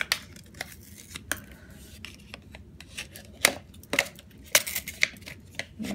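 Plastic ice pop mould being handled, its handles pulled out of the moulds: a run of sharp, irregular plastic clicks and knocks.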